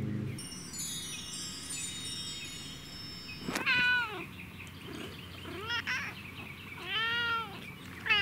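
Domestic cat meowing several times in short arched calls, starting about three and a half seconds in. Before the meows, a falling run of high tones sweeps down over the first few seconds.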